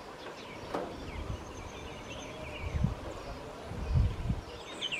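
Small birds chirping in short calls, with low gusts of wind buffeting the microphone, loudest about three and four seconds in.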